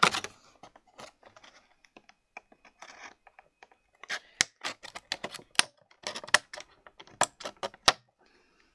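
Small scissors working at a clear plastic blister tray, the plastic crackling: a string of sharp clicks and crinkles, sparse at first and much thicker from about four seconds in.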